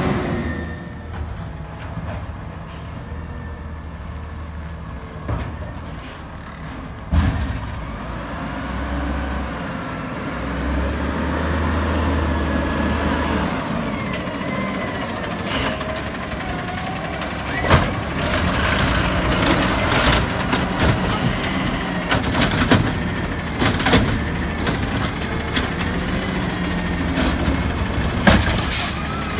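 Natural-gas Peterbilt automated side-loader garbage truck: the engine runs steadily. In the second half the hydraulic arm grabs, lifts and dumps a cart, with repeated sharp clanks and knocks.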